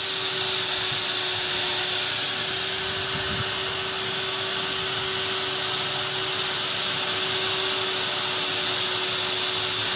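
Die grinder driving a flexible-shank carbide bur inside the bore of a metal hub, running steadily with an even hum and a strong high hiss as the bur grinds the metal.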